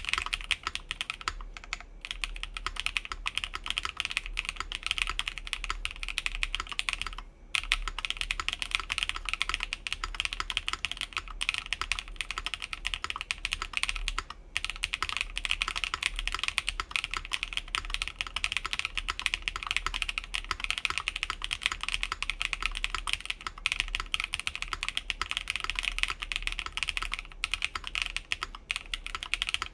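Continuous fast typing on a mechanical keyboard with lubed Blue Cheese v2 switches, DSA keycaps, a full aluminium plate, and plate and case foam fitted. The dense run of keystrokes pauses briefly about 7 seconds in and again about 14 seconds in.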